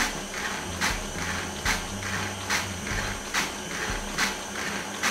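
KitchenAid stand mixer running with its sifter attachment driven from the front hub. A steady motor hum with a sharp click repeating a little more than once a second as the sifter turns.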